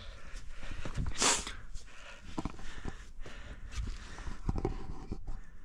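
A hiker's footsteps on rocky ground with heavy breathing while climbing at high altitude, including a loud rush of breath about a second in.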